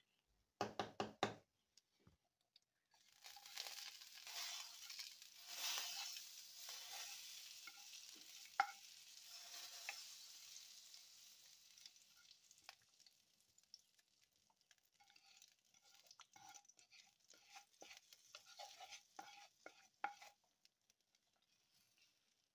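A quick run of knocks about half a second in, then a hiss lasting several seconds as hot oil and golden-brown fried garlic are tipped from a frying pan into a pot of yogurt sauce. Then a wooden spoon stirring the sauce, with a string of soft knocks against the pot.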